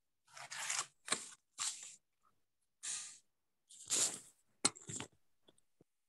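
Short scratchy rustling noises on paper, about seven of them, each brief and separated by complete silence. They fit a ballpoint pen scratching across a sketchbook page in small strokes.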